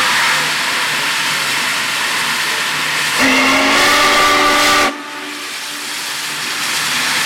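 Union Pacific 3985 Challenger steam locomotive hissing steam as it moves slowly. About three seconds in, its steam whistle blows one chord-like blast of under two seconds that cuts off sharply. The hiss dips after the whistle stops, then builds again.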